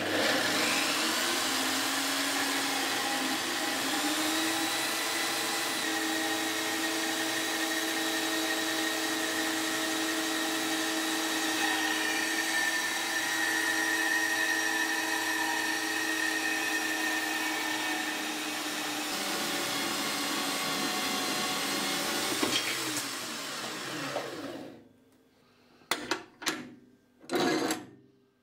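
Scheppach portable metal band saw running and cutting through a rusty square steel tube: a steady motor whine with the rasp of the blade in the steel, which stops after about 24 seconds. A few short knocks follow near the end.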